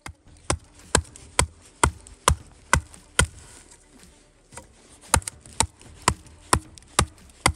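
Axe chopping into wood: sharp strikes about two a second, seven in a row, a pause of about two seconds, then six more. The strikes cut notches into firewood logs so they catch better.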